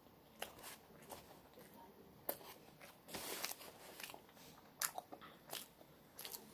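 Paper food wrapper crinkling as a tortilla-wrapped item is handled and unwrapped: scattered sharp crinkles, with a longer rustle about three seconds in.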